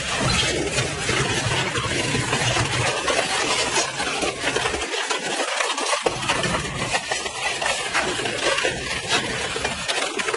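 Industrial twin-shaft shredder grinding up a small cargo vehicle: continuous crunching, crackling and clattering of metal and plastic being torn between the rotors.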